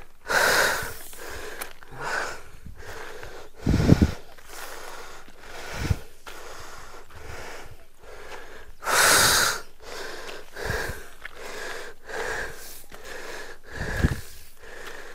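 A person breathing hard from the effort of climbing a steep hill path, in short repeated puffs, with a louder rush of air about nine seconds in. Several dull low thumps fall in between.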